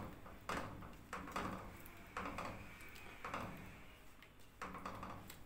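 Spatula stirring and scraping a thick, creamy gravy in a nonstick kadhai, a faint stroke roughly every second.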